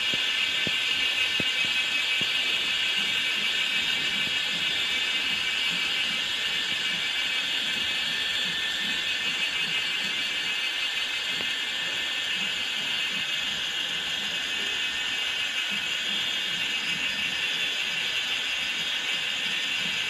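Steady, high-pitched insect chorus, a dense shimmering drone that holds without a break.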